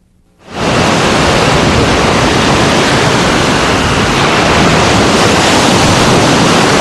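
Surf washing onto a sandy beach: a steady, loud rush of waves that starts about half a second in.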